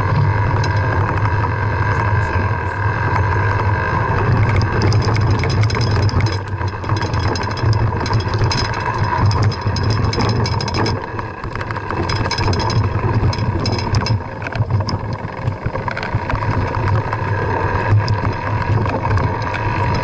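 Mountain bike ridden over a rough dirt trail, heard from a bike-mounted camera: a steady low rumble of tyres and wind with rattling clicks from the bike jolting over the ground, busiest in the middle stretch.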